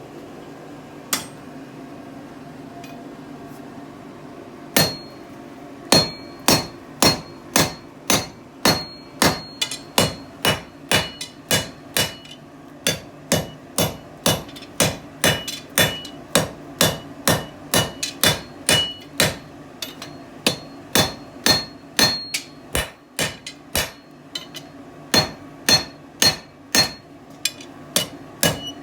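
Blacksmith's hand hammer striking hot mild steel on the anvil, one blow about a second in, then steady forging at roughly two blows a second with a brief pause near the end, each blow with a short metallic ring. A steady low hum runs underneath.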